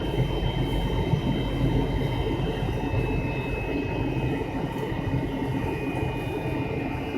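Cabin noise near the rear of an MD-83 airliner: the aft-mounted Pratt & Whitney JT8D engines whine steadily over a low, continuous rumble, with the whine's pitch shifting slightly near the end.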